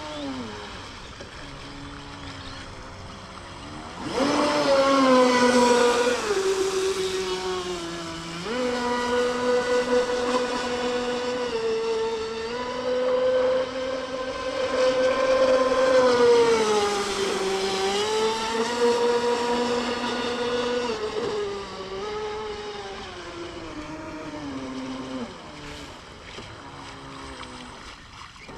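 Large electric RC speedboat on a 6S battery running across the water: its brushless motor and propeller give a pitched whine that jumps up and gets louder about four seconds in, shifts in pitch as the throttle changes, and fades toward the end.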